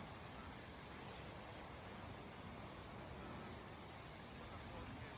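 A steady high-pitched chorus of insects, with a low, even rush of flowing water beneath it.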